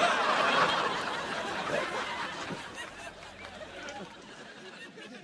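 Canned sitcom audience laughter: a crowd of voices laughing together, loudest at the start and dying away steadily over about five seconds.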